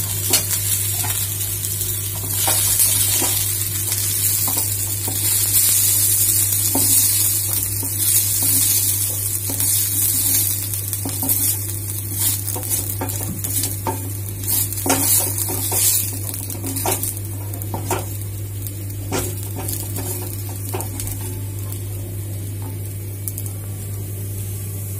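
Fried onion, ginger and garlic sizzling in hot oil in a kadhai while a wooden spatula scrapes them out of the pan, with repeated clicks and scrapes of wood on the pan. The sizzle is strongest through the first two-thirds and thins out near the end as the pan empties. A steady low hum runs underneath.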